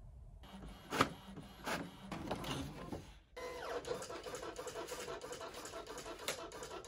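A few clicks and scrapes, then, about a third of the way in, a small desktop office machine starts a steady run on card stock, with a hum and rapid even ticking.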